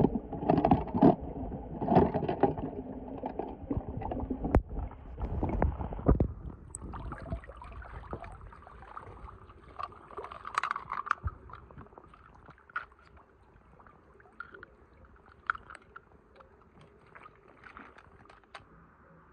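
Muffled sloshing and gurgling of pool water heard through a submerged camera as a skimmer net is pushed through it, with a couple of sharp knocks. After about seven seconds it drops to a quiet stretch of faint drips and small ticks.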